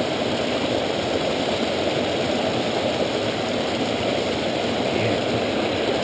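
Steady rush of a small creek tumbling over a rocky cascade close by.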